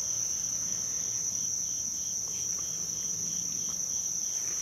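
Insect chorus: a steady high-pitched drone, with a softer pulsing call repeating about three times a second.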